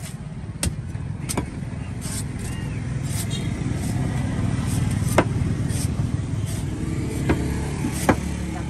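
A cleaver chopping the husk of a green coconut on a wooden block: about five sharp chops at uneven intervals, the loudest a little past the middle. Under it, a steady low rumble of road traffic that swells and eases off.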